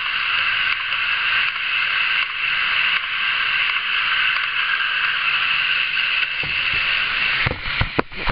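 Steady rolling noise of a model freight train's flatcars and trailers running along the layout track. From about seven and a half seconds in, a run of irregular knocks and bumps from the camera being handled.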